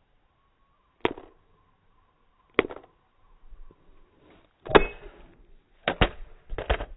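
A series of hard knocks against a mobile phone: single blows about a second apart at first, the loudest near the middle, then quicker pairs of strikes near the end.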